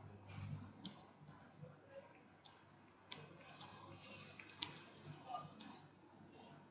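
Faint computer keyboard keystrokes: irregular, sharp clicks as commands are typed and entered.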